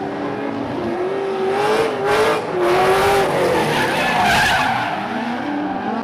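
Holden VE Commodore's tyres squealing as the car slides sideways under wheelspin, the squeal wavering up and down in pitch and loudest through the middle.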